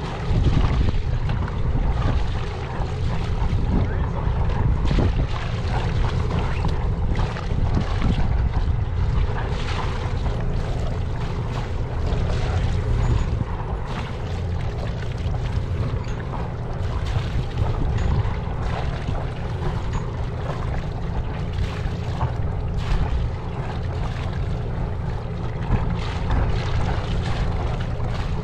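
Wind rushing steadily over the microphone on a sailboat's deck, a deep buffeting rumble, with a few brief knocks or flaps here and there.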